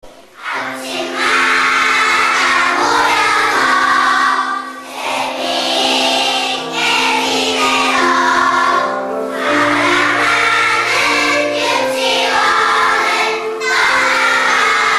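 A group of young children singing a song together, starting about half a second in.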